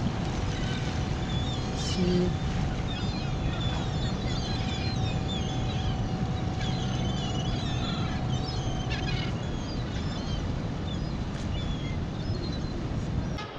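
A flock of gulls calling over a small fishing boat, whose motor runs with a steady hum that drops away about two-thirds of the way through, over a constant rumble of wind and sea.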